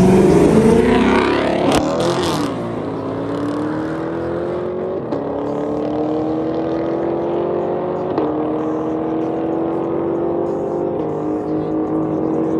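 Two cars launching in a dig race and accelerating hard away. The crossing engine notes fade into a steadily climbing pitch that breaks about every three seconds, as at each upshift.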